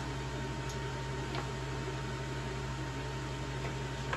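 Steady low hum and hiss of room background noise, with one faint light click about a second in.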